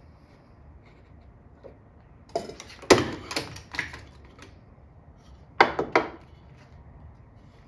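Sharp hard knocks and clatter of wood and tools being handled on a workbench: a quick run of several knocks about two and a half seconds in, then two more a couple of seconds later.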